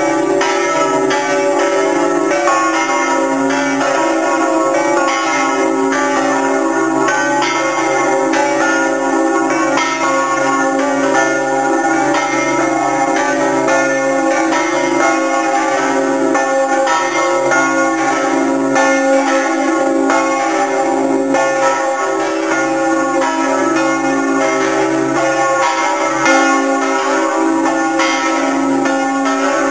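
Several large bronze church bells swinging and ringing together, heard loud from inside the belfry, their strokes overlapping into a steady, dense clanging with long ringing overtones.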